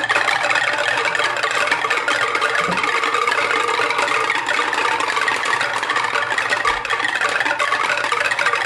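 Many marbles rolling and clattering along a marble run's track, a dense continuous rattle of small clicks with no pause.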